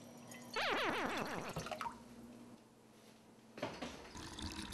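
Water running and splashing into a pot, in two spells: a louder one about half a second in that sweeps down in pitch for about a second, and a quieter one near the end.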